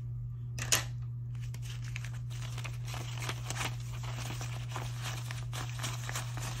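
Paper banknotes, a stack of US dollar bills, rustling and crinkling as they are flicked through by hand and counted, in a dense run of crisp crackles. A single sharp tap comes just before the rustling starts, over a steady low hum.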